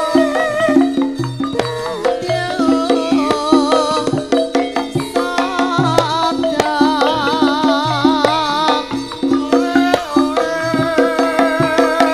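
Live Javanese gamelan for a tayub dance: regular kendhang hand-drum strokes under repeated metallophone notes, with a woman's voice singing a wavering, vibrato melody above them.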